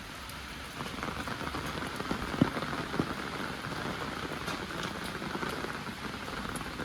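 Heavy rain falling steadily, with single drops striking close by; it grows louder about a second in, and one drop lands harder partway through.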